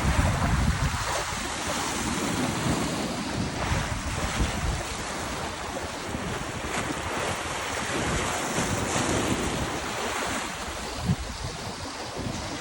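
Lake water washing in small waves, with wind rumbling on the microphone in gusts, heaviest at the start.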